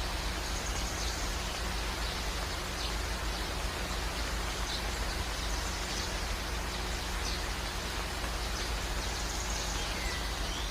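Steady rain-like hiss with faint, brief high chirps scattered through it and a short whistled glide near the end, like distant birds.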